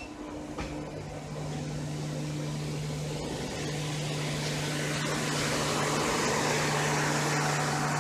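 Air-conditioned LHB passenger coaches rolling past close by, with a steady low hum and a few wheel clicks near the start. A broad rushing noise builds over the second half and is loudest near the end.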